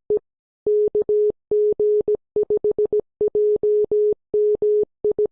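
Morse code (CW) sent as a single steady mid-pitched beep, keyed on and off in short dots and longer dashes with gaps between letters and words.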